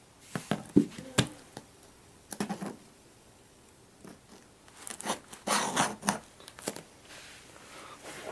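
Scissors and a sealed plastic shipping package being handled: several sharp clicks and snips, then a burst of rustling and crinkling about five to six seconds in.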